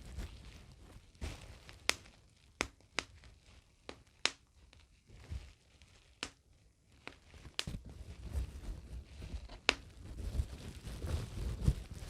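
Plastic bubble wrap being handled and squeezed, with about seven sharp single pops spread unevenly among soft crinkling.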